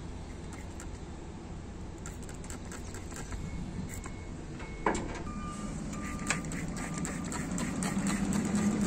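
A steady low engine rumble, with a sharp metallic knock about five seconds in, a second short knock a little later, and a hum that rises in pitch and grows louder near the end.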